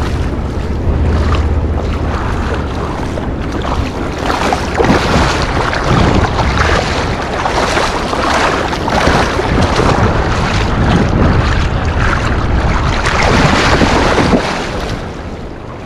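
Wind buffeting the microphone over rushing water, a loud unbroken noise with a low rumble in the first seconds. It fades out near the end.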